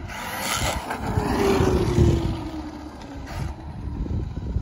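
A Traxxas Maxx RC monster truck with brushless motor on 4S LiPo drives past on wet pavement. Motor whine and tyre noise swell to their loudest about two seconds in, and the whine falls in pitch as the truck goes by and away.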